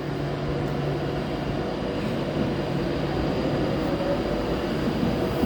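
Class 390 Pendolino electric train pulling away and picking up speed: a steady rumble of wheels with a low traction hum, and a faint whine rising in pitch in the second half.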